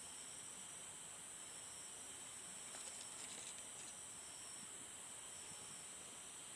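Faint, steady high-pitched insect chorus, such as cicadas or crickets, with a few faint clicks about three seconds in.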